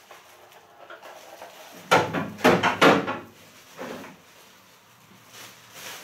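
Clear plastic packaging crinkling and rustling as a small engine power head is unwrapped and handled, with a few loud rustles about two to three seconds in and a shorter one near four seconds.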